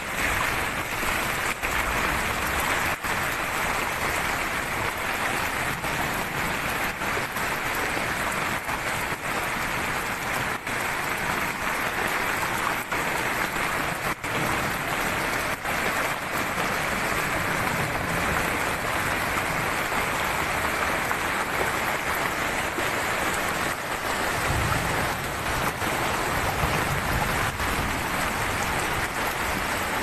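Steady rush of muddy floodwater pouring across a road, the overflow of a waterfall swollen by heavy rain.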